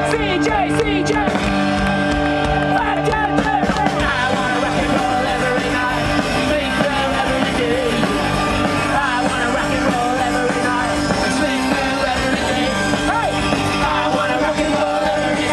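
Live punk rock band playing, with a voice singing over the full band.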